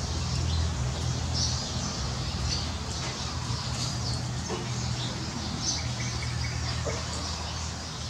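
Steady rain falling on leaves and gravel, with water streaming off a roof edge and a steady low rumble underneath. Birds chirp briefly and repeatedly over the rain.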